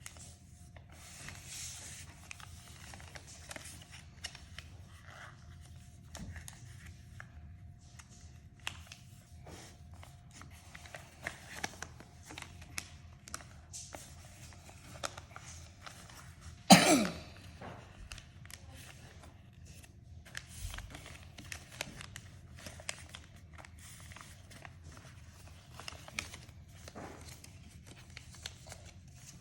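Paper crafting at a table: scissors snipping and paper rustling and tearing in many small, irregular clicks and crinkles. A little past halfway, one short loud cough stands out above the rest.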